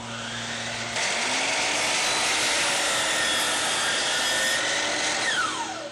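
DEWALT miter saw motor running and the blade cutting through crown molding, the sound growing louder about a second in as the blade goes through the piece. Near the end comes a falling whine as the blade winds down after the trigger is released.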